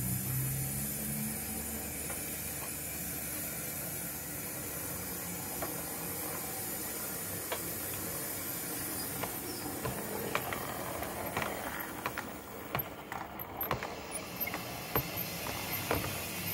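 O gauge (7mm) model tank locomotive and its coaches running past on the layout: a steady hiss, with wheels clicking and ticking over rail joints and pointwork. The clicks grow thicker and louder from about halfway as the train comes by close.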